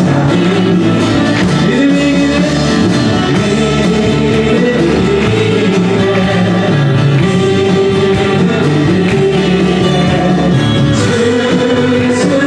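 Worship band playing a praise song, with voices singing along.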